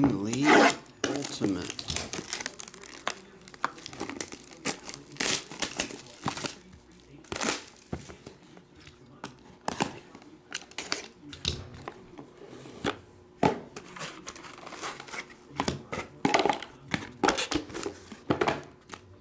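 Plastic shrink wrap on a trading-card box being slit with a knife and torn off, crinkling and ripping in irregular crackles, the loudest right at the start, followed by the box and its cards being handled.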